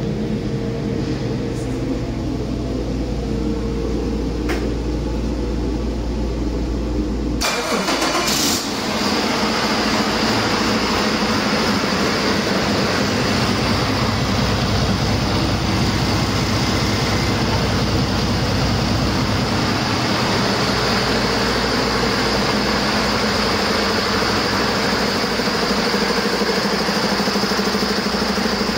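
International A26 12.4-litre inline-six diesel engine running on a test stand. About seven seconds in, its sound changes abruptly from a steady low hum to a louder rush with a steady high whine, which holds to the end.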